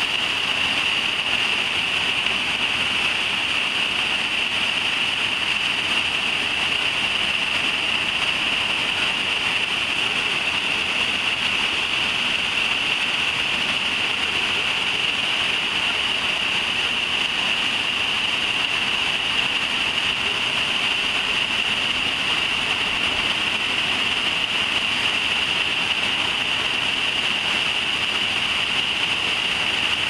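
Waterfall pouring steadily into a pool below, a constant rush of falling water with no breaks.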